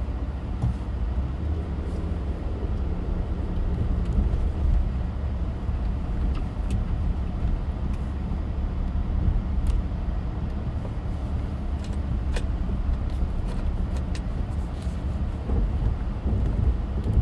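Car driving on snowy, slushy roads, heard as a steady low rumble of road and engine noise, with a few faint ticks scattered through it.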